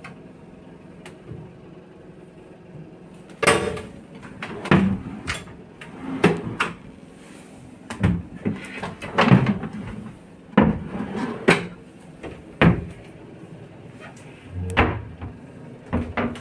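Wooden wardrobe doors being opened and shut: a string of sudden knocks, clicks and dull thumps, starting about three and a half seconds in.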